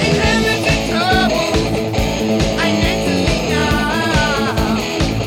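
Hard rock music with distorted electric guitar, bass and drums keeping a steady beat, and a high lead melody that slides and wavers in pitch over the top.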